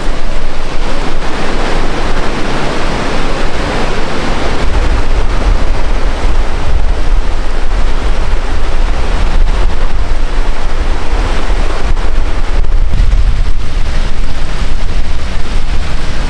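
Nolichucky River in flood after hurricane rains, its muddy water rushing with a steady hiss, and wind rumbling on the microphone, stronger from about five seconds in.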